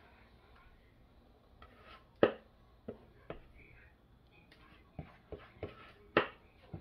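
A spatula scraping whipped cream out of a plastic mixing bowl, with a string of short, sharp taps and knocks as it strikes the bowl; the loudest tap comes about two seconds in.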